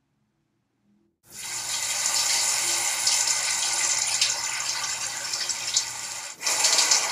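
Shower head spraying water, a steady hiss of falling spray that cuts in suddenly about a second in, with a brief drop near the end.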